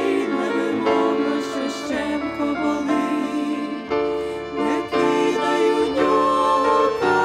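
A women's vocal trio singing a Ukrainian hymn, held notes with vibrato, accompanied by piano and violin.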